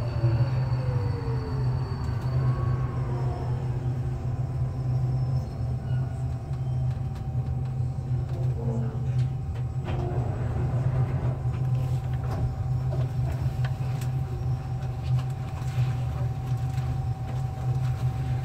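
Alstom Metropolis metro train pulling out of a station and running on through a tunnel: a steady low rumble of wheels on rails, with a falling whine during the first couple of seconds as it accelerates and a steady high tone from about ten seconds in.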